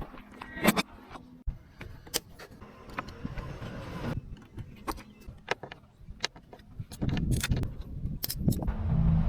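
Scattered sharp metallic clicks and clinks, then about seven seconds in the Suzuki Wagon R's small engine starts running with a steady low rumble.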